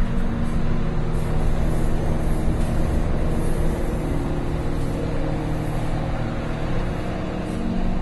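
Steady low rumble of a train running on the tracks, with a few held humming tones that shift slightly near the end.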